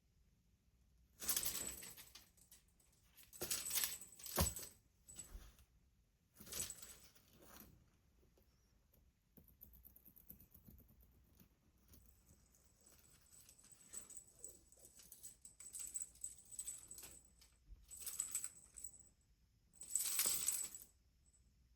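A cat wand toy being swished and shaken in play, rattling in short irregular bursts of about a second each, with quieter rattling between; the loudest burst comes near the end.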